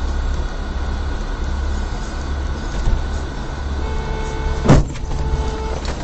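Steady low road-and-engine rumble of a car driving, heard from inside the cabin, with a sudden loud thump a little before the end. A steady pitched tone sounds through the last two seconds.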